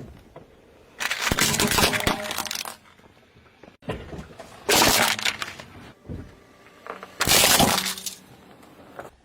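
Glass being crushed under a car tyre: three bursts of crunching and breaking, each lasting about a second.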